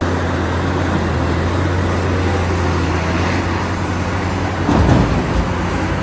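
Caterpillar 6015B hydraulic mining excavator running, a steady low engine drone with heavy machinery noise over it. The noise swells into a louder rumble a little under five seconds in.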